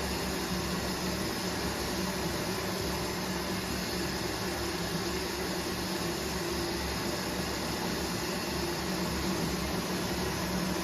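Washing machine running on a 40 °C cottons cycle: a steady hum over an even rushing hiss, with no knocks or changes.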